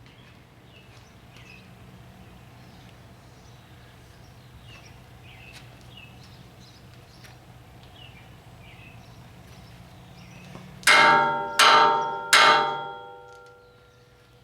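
Three hammer blows on steel about two-thirds of a second apart, near the end, each ringing out and fading. Before them, only faint bird chirps over a low steady hum.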